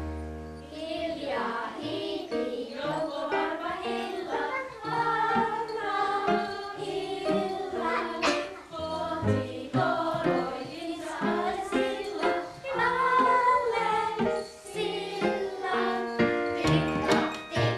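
Children's song: several voices singing together over a musical backing with a bass line.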